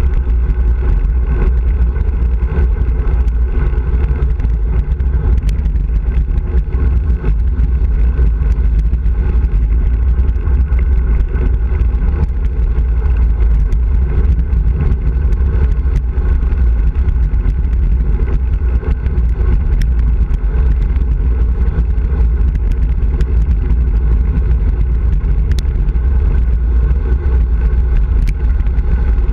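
Wind buffeting the microphone of a handlebar-mounted camera on a fast bicycle descent, a steady loud rumble mixed with the tyres running on the road surface, with a few faint ticks.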